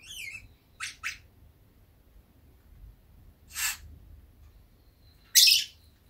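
Lovebird chirping and calling in separate notes: a warbling, falling chirp at the start, two quick chirps about a second in, another call in the middle, and a loud, sharp squawk near the end.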